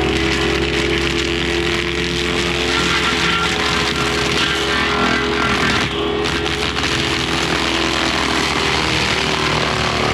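Diesel mini excavator running hard with a hydraulic forestry mulching head spinning: a steady engine drone under the whine of the mulcher drum and the noise of shredding brush, with no break.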